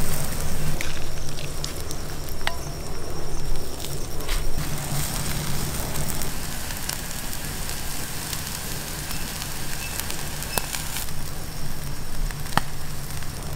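Spice-coated meat ribs sizzling on a wire grill over glowing charcoal, with the fire crackling and giving scattered sharp pops.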